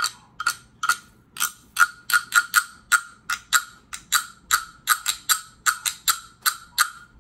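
Wooden frog guiro played with a stick rubbed along the ridges on its back: about twenty short rasping croaks in a rhythm of roughly three a second. Each croak rings at the same pitch.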